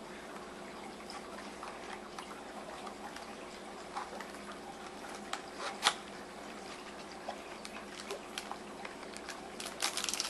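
A small cardboard box being opened by hand: faint scrapes and light clicks of the card flaps over a steady background hum, with one sharper click about six seconds in and a cluster of clicks near the end.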